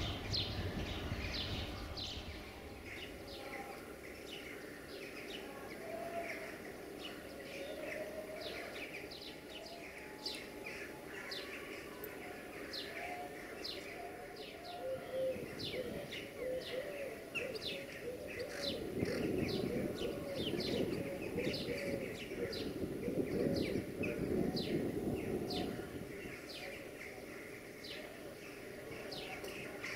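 Small birds chirping repeatedly in quick short notes. A lower swelling sound joins them about halfway through and fades again several seconds later.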